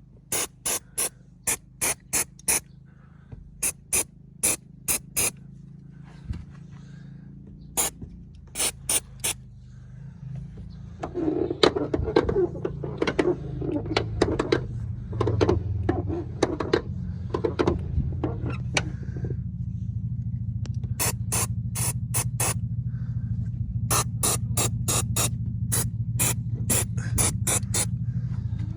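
A car engine starts about eleven seconds in and idles steadily, under runs of quick, sharp clicks, about four a second, that come in groups before and during it.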